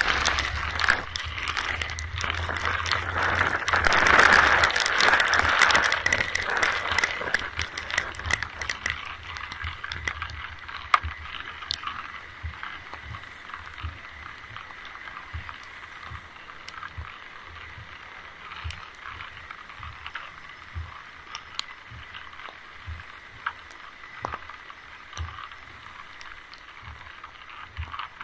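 Rain falling, a steady hiss full of small drips and crackles, heavier for the first several seconds and then easing to a lighter patter. Soft low thumps come about once a second through the latter part.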